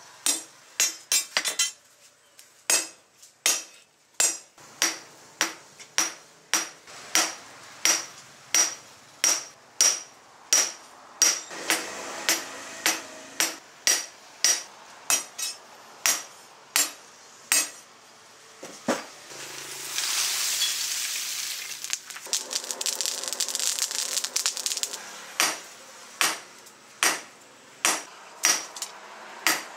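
Hand hammer striking a rebar sword blade on a round steel post anvil: steady blows with a high metallic ring, about one every 0.7 seconds. Near the middle the blows stop for a few seconds under a loud hiss, then resume.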